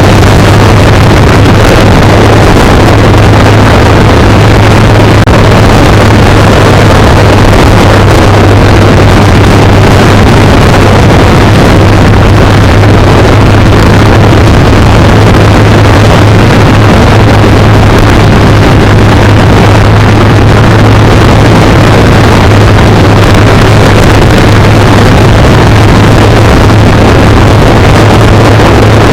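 Kawasaki Z900 inline-four running steadily at cruising speed, with a constant low drone and wind rushing over the microphone.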